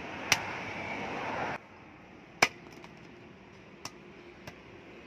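Steel cleaver, forged from a truck leaf spring, chopping through a green plant stalk into a wooden stump: two sharp chops about two seconds apart, then two lighter knocks.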